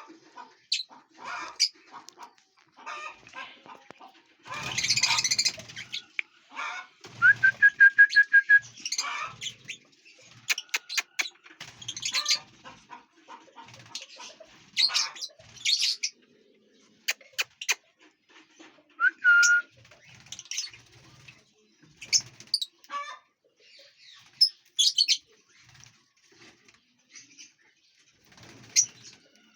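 Lovebirds chirping in many short, sharp calls, one holding a brief whistled note, with a short rush of wing flapping about five seconds in.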